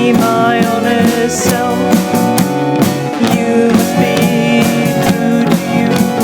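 Instrumental passage of a pop-rock song, with no vocals: guitar and bass over a steady drum-kit beat.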